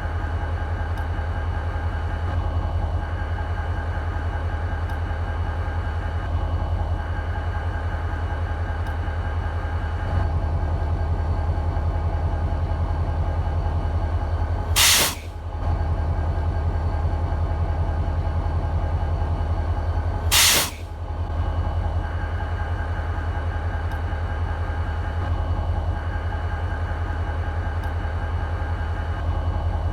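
BNSF SD40-2 diesel locomotive's EMD 16-645 two-stroke V16 idling with a steady low rumble. Around the middle, two short loud bursts of air hiss about five seconds apart.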